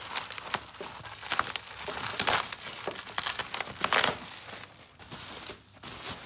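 Plastic bubble wrap being pulled and crumpled by hand, an irregular crinkling and rustling that swells loudest about two and four seconds in.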